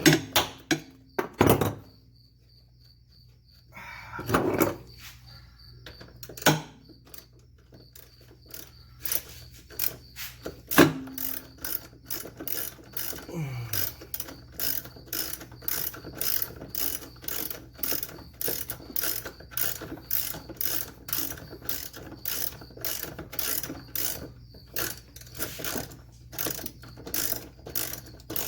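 Ratchet wrench clicking in a quick, even run of strokes as a 10 mm bolt holding the car's fuse box is backed out, after a few separate knocks and handling noises.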